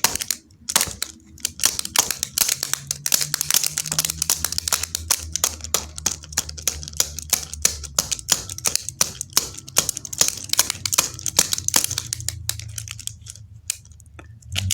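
Rapid, irregular clicking and clattering of small hard parts being handled, with a low hum from about two seconds in until near the end.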